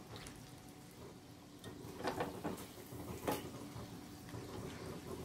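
Paneer pieces deep-frying in hot oil in a small kadai, a faint sizzle, with a few light clinks of a metal skimmer against the pan about two and three seconds in.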